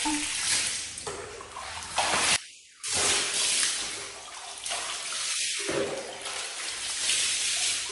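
Hot-spring water splashing and pouring in uneven surges, with a sudden short break about two and a half seconds in.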